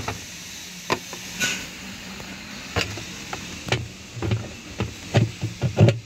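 Irregular knocks and clunks of plastic parts being handled and fitted at the centre hub of a top-load washing machine's wash tub, about eight of them, the later ones louder with a low thud.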